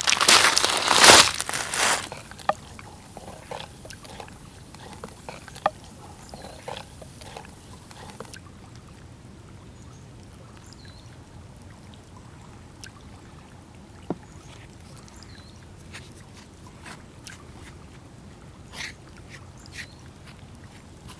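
Liquid pouring into a clay pot: a loud splashing rush in the first two seconds. After that only faint, scattered taps and clicks.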